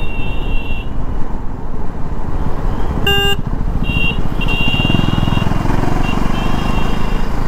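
KTM 390's single-cylinder engine running at low speed, with wind and road rush on the helmet microphone, as the bike slows to a crawl. A short horn beep sounds about three seconds in, and a high steady tone comes and goes several times.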